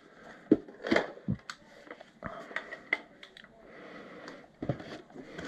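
Scattered clicks and light knocks of a plastic and metal airsoft rifle being handled and laid down into its foam-lined hard case, with a soft rustle in between.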